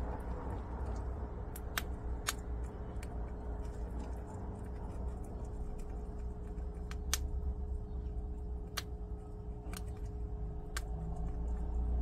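A prairie dog crunching dry wild soybeans: sharp, irregular cracks as the hard beans break between its teeth, about eight in all, over a steady low background hum.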